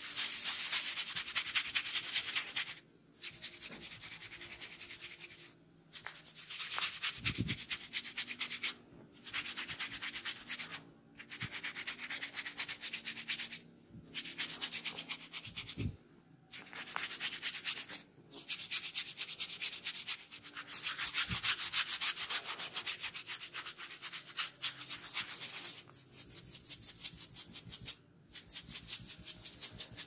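Fingers rubbing quickly through hair and over the scalp during a head massage, a dense scratchy rustle. It comes in runs of two to three seconds with short breaks between.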